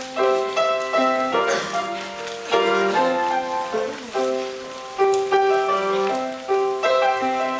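Grand piano playing a slow introduction of struck chords and broken-chord figures, each note ringing and fading before the next.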